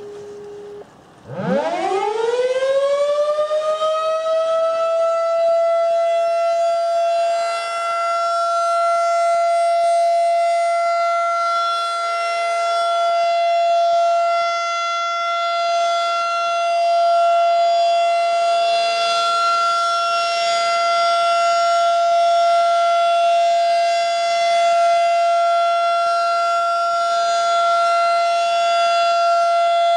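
Federal Signal 2001-SRN rotating outdoor warning siren starting up: a rising wail winds up over about four seconds to one steady pitch, which it then holds as a continuous alert tone, swelling slightly in loudness as the head turns. Just before it starts, a lower steady tone cuts off.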